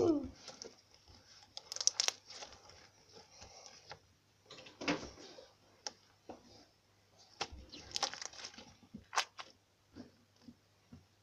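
Sticky slime being kneaded and pulled apart by hand on a tabletop: irregular crackles and soft tearing sounds, with a short falling squeak at the very start.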